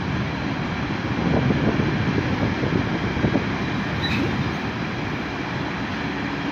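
Freight train of covered hopper wagons rolling slowly past, a steady rumble of steel wheels on the rails.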